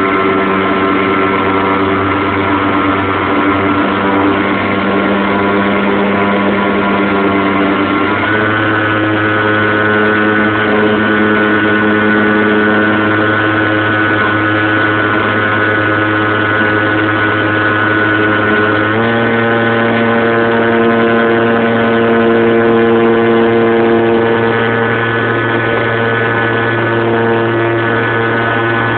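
RC model airplane's motor running steadily at a set throttle, its pitch stepping up abruptly twice: once about eight seconds in and again about nineteen seconds in.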